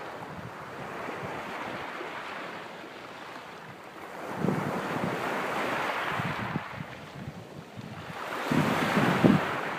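Small waves breaking and washing up the beach, the surf swelling twice, about halfway through and again near the end, with wind buffeting the microphone.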